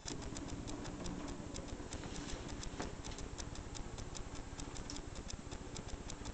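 Kitchen tap turned on, a thin stream of water running into a stainless-steel sink; it comes on suddenly, with a steady splashing hiss and quick, irregular ticks of water striking the metal, about five a second.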